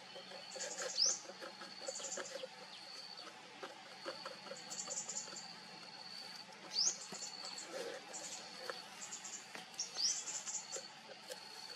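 Wild bird song in the background: a quick rising whistle that settles into a long, held high note, repeated several times, with short high chirps between.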